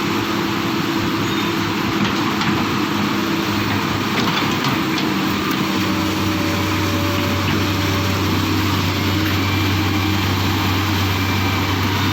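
Excavator's diesel engine running steadily, with a deeper hum joining about halfway through.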